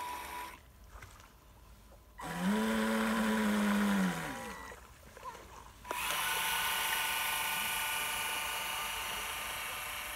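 Radio-controlled model tug Smit London: a low pitched hum winds up, holds for about two seconds and winds back down. About six seconds in, a high, steady whine starts and carries on while the model gets under way.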